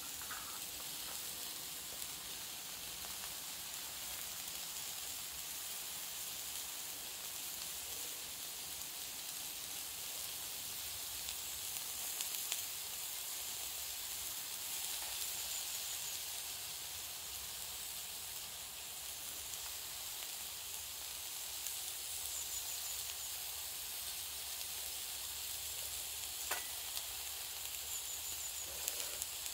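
Burger patty frying in a small pan on a Mini-Trangia spirit stove, a steady sizzle. A few light clicks come from small dishes being handled.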